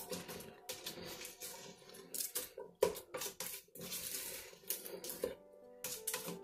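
A spatula stirring peas and potato chunks in a stainless steel pot, with irregular scrapes and knocks against the pot. Soft background music grows clearer near the end.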